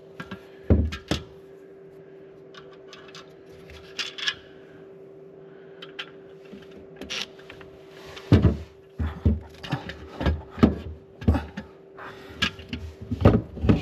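Handling and test-fitting of parts in the tight space under a boat's console: scattered clicks and knocks, sparse at first and coming thick from about two-thirds of the way in, with some rubbing. A steady low hum runs underneath.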